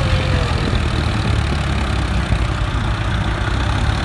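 Diesel tractor engine running steadily under heavy load, a low drone, as it drags a loaded scraper blade through sand with the rear wheels spinning. A second tractor's engine runs alongside.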